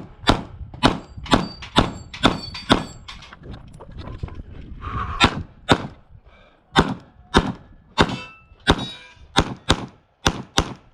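Rapid pistol fire from a 9mm Glock 45 shooting a competition stage: strings of shots a fraction of a second apart, with a pause of about a second and a half near the middle before the firing resumes.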